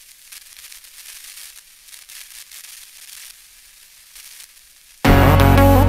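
Faint, uneven rustling noise, then loud music cuts in abruptly about five seconds in.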